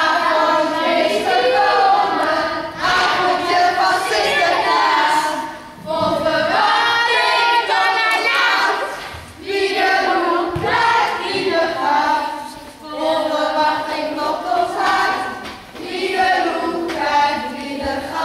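A group of young girls singing a Sinterklaas song together, in phrases a few seconds long.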